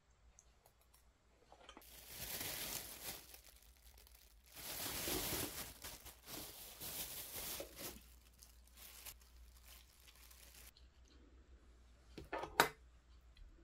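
Thin plastic bag crinkling as it is handled and opened, in two spells in the first half with lighter rustles after. A single sharp tap comes near the end.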